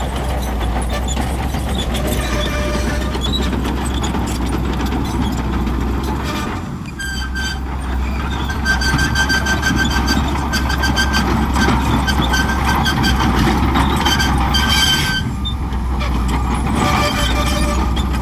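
Shantui crawler bulldozer's diesel engine running steadily under load, with a high-pitched metallic squeal pulsing in short repeated dashes through the middle stretch.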